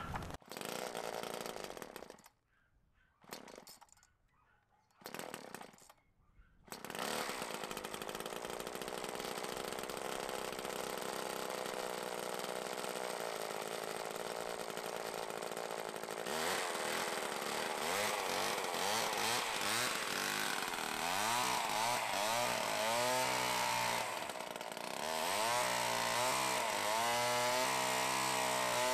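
Homelite XL two-stroke chainsaw powerhead of a Cobra chainsaw winch starting up: it sounds in short bursts with gaps for the first several seconds, then runs steadily. About halfway through it speeds up and gets louder, its pitch rising and falling over and over as it works the winch.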